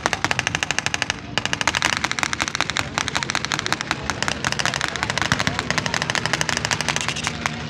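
Rapid machine-gun fire in long continuous bursts, simulated for a mock aerial battle, with a short break just after a second in. Underneath runs the steady drone of the vintage aircraft's piston engines.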